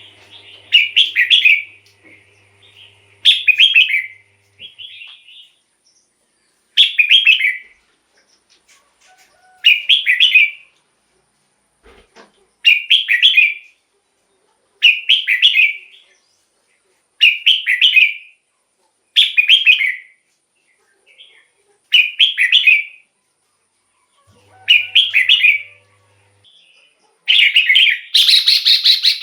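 Red-whiskered bulbul singing: short warbled phrases of about a second each, repeated every two to three seconds, about eleven in all, the last one longer.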